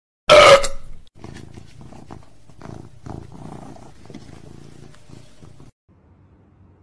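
A short, loud, high-pitched cry, then a domestic cat purring close up in slow pulses for several seconds until it stops near the end.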